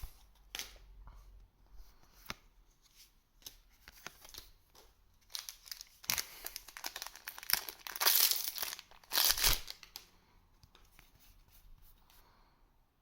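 Trading card booster pack wrapper being torn open and crinkled: a few light clicks and rustles, then a run of tearing and crackling about halfway through, loudest near the end of that run, before it settles to quiet handling.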